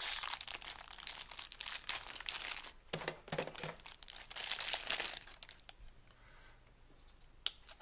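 Plastic packaging crinkling and tearing as it is handled and opened for about five seconds, then quieter handling with one sharp click near the end.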